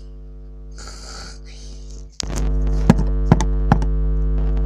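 One long, hissing snore about a second in. Then, a little after two seconds, a loud steady electrical hum cuts in suddenly, with three sharp clicks over the next second.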